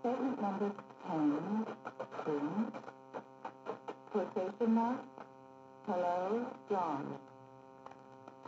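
A man's narrating voice from an old film, played back in low fidelity through a TRS-80 Model I's digitised audio, speaking in short phrases over a steady hum.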